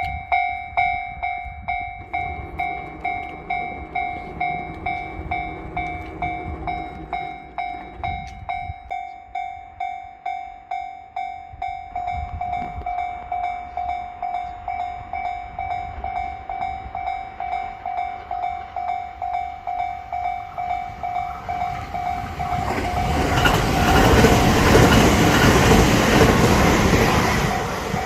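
Japanese level crossing warning bell ringing as an electronic ding, repeating about one and a half times a second. From about 22 seconds in, a train passes over the crossing; its rumble swells louder than the bell and eases off near the end while the bell keeps ringing.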